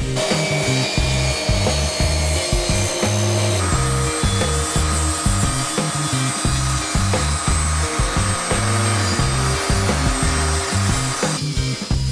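Background music with a stepping bass line over a steady scraping of a tool working wood, sawing or sanding, which stops near the end.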